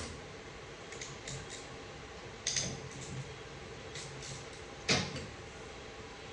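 Scattered short metallic clicks and knocks of hand tools and bolts being handled while unbolting a transmission's valve body, the loudest about five seconds in, over a faint steady hum.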